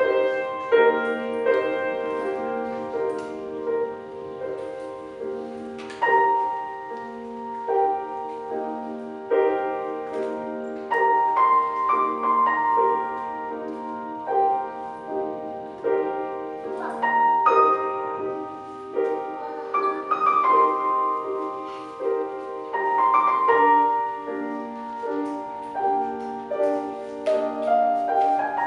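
Solo grand piano playing a classical piece: a repeated note pulses steadily in the middle register beneath a melody above it.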